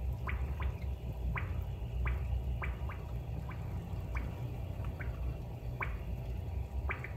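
Aquarium water filter's bubble sound: short rising 'bloop' drips at uneven spacing, about two a second, over a steady low hum.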